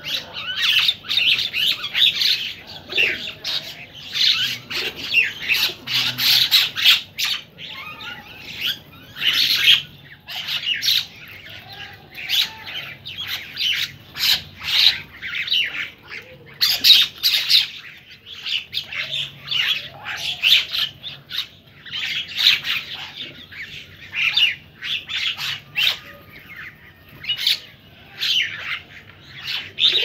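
A flock of mynas feeding together, giving a dense, continuous chatter of many overlapping harsh squawks and calls.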